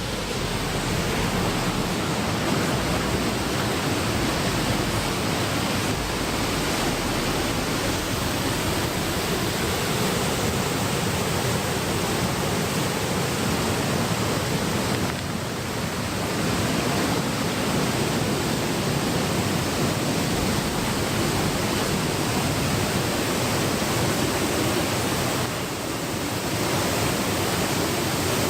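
Waterfall: a steady, loud rush of water pouring and splashing, dipping briefly twice.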